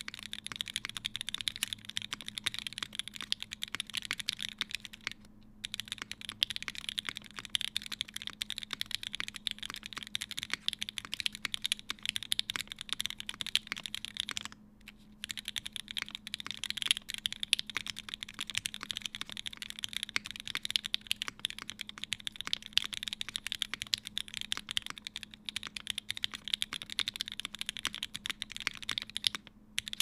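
Continuous fast typing on a Palmetto mechanical keyboard with lubed and filmed Gateron CJ linear switches, an aluminium plate and GMK Space Cadet keycaps. The keystrokes come in a dense stream, with brief pauses about five, fifteen and twenty-nine seconds in.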